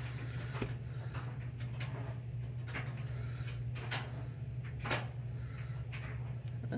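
A few soft clicks and taps of hands handling a glue bottle and a scrap of lace, over a steady low hum.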